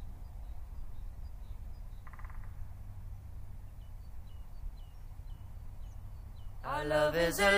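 Outdoor garden ambience: a steady low rumble with a small bird giving scattered short, high chirps, and a brief buzz about two seconds in. Music starts near the end.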